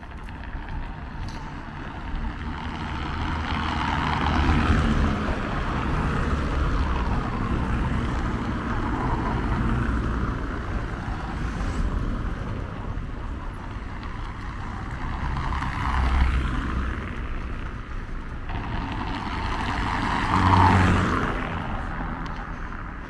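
Street traffic: cars passing one after another, their tyre and engine noise swelling and fading, the loudest passing near the end.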